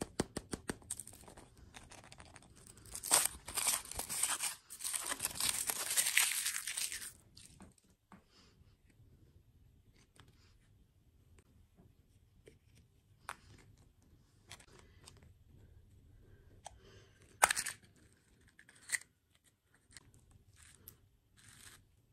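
Foil wrapper crinkling and tearing as it is peeled off a chocolate surprise egg, loud and dense for about four seconds starting about three seconds in. Then quieter handling of the chocolate shell and plastic toy capsule, with two sharp plastic clicks about a second and a half apart later on.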